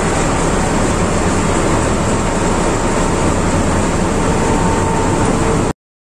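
Ship's MAN B&W auxiliary diesel generator engine running steadily under a loud, even engine-room din with a low hum. The sound cuts off abruptly near the end.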